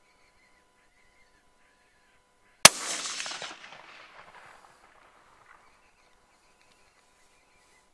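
A single rifle shot cracks about two and a half seconds in, and its echo rolls away and fades over the next two to three seconds.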